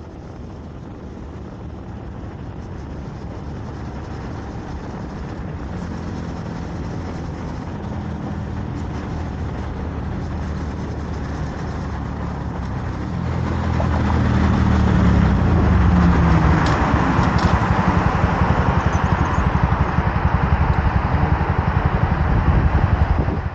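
Honda Monkey mini motorcycle's single-cylinder engine running under way, with wind and road noise rushing over the microphone. About halfway through, the engine and the wind both get louder, the engine note shifts in pitch for a few seconds, and the sound cuts off suddenly at the end.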